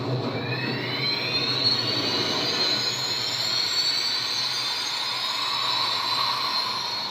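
A machine's whine rising slowly in pitch over the first few seconds, then holding high and steady over a constant rushing noise and low hum.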